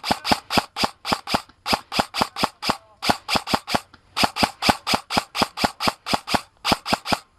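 Airsoft gun firing in quick strings of sharp shots, about six a second, with short pauses between strings.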